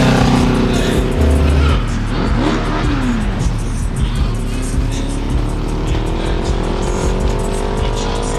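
Music with a steady bass beat, mixed with street traffic: vehicles going by, and one engine rising steadily in pitch as it accelerates over the last few seconds.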